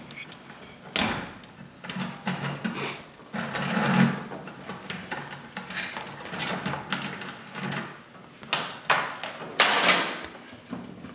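Hands handling ignition wires and metal connectors on a truck firewall: irregular clicks, knocks and rattles, with louder clatters about a second in and near the end.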